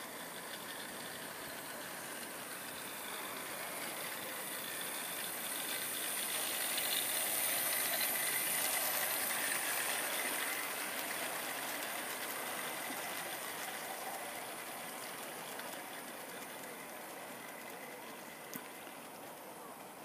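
0 gauge model train, a North Eastern Railway class O 0-4-4 tank locomotive hauling three coaches, running on garden track with its wheels rattling on the rails. The sound grows louder as the train passes close by about eight to ten seconds in, then fades as it runs away. A single click comes near the end.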